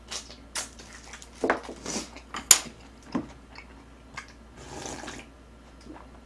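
Close-up eating sounds: mouth smacks and sharp clicks while finishing a fried chicken drumstick, then a soft slurp of jjamppong broth drunk straight from a ceramic bowl about four and a half seconds in.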